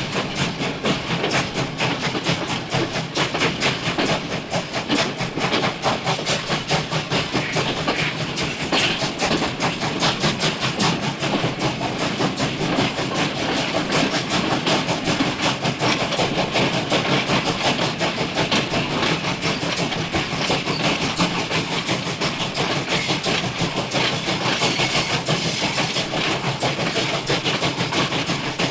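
Steam train running: a fast, even rhythm of chuffs and rail clatter over a steady hiss, with the hiss growing brighter for a couple of seconds near the end.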